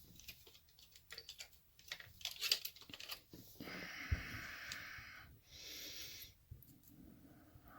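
Faint small clicks and taps of tiny lock parts being handled while springs are fitted into a Yale lock cylinder's pin chambers, followed by two stretches of soft hissing noise about halfway through.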